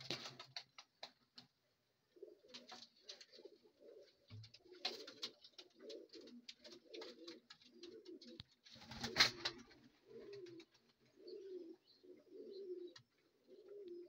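Domestic pigeon cooing: a run of low, wavering coos, one after another, from about two seconds in. A few scattered clicks come in the first second and a half, and a loud, brief rush of noise comes about nine seconds in.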